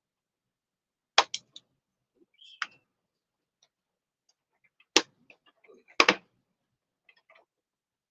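Hard plastic parts and packaging of an action figure being handled: a few sharp clicks and taps, the loudest about five and six seconds in, with light rustling between.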